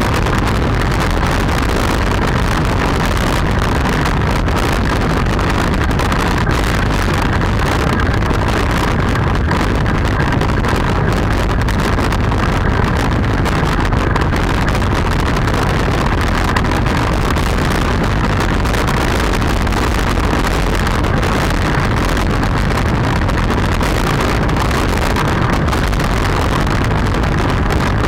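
Steady rush of wind over the microphone mixed with the rumble of hard wheels rolling on asphalt, heard from on board an engineless soapbox cart running downhill at speed.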